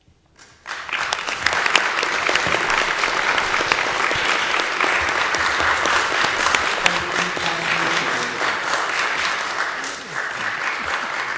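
Audience applauding: clapping starts about half a second in, quickly builds to a steady, dense level, and eases slightly near the end.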